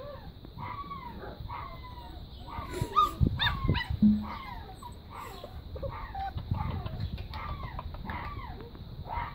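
Young puppies whining and yipping: a run of short, high cries that fall in pitch, about two a second, with a few thumps about three seconds in.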